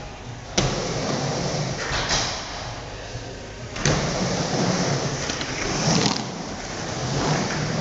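A skateboard drops into an indoor wooden bowl with a sharp clack about half a second in. Its wheels then roll steadily over the ramp surface, the rolling noise swelling about every two seconds as it carves up and back down the walls.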